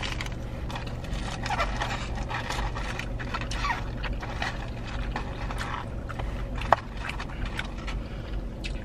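Eating noises: fast-food packaging rustling and crinkling, with chewing, as many small irregular clicks and one sharper click about two thirds of the way through, over a steady low hum.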